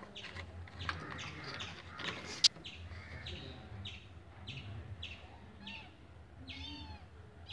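Birds chirping in the background: a run of short high chirps about twice a second, then a longer curving call near the end. There is one sharp click about two and a half seconds in.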